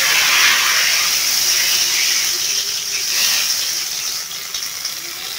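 Hot frying oil poured over cumin seeds and whole dried red chillies, sizzling and hissing hard as the tadka cooks. The sizzle is loudest at first and gradually dies down.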